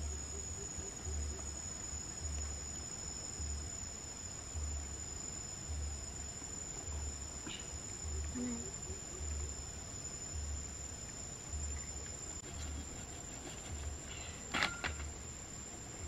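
Insects droning in one steady, high, unbroken tone, over a low throb that pulses about once a second. A sharp knock sounds near the end.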